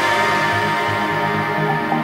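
Background music: sustained synth-like tones over a low bass line that steps between notes.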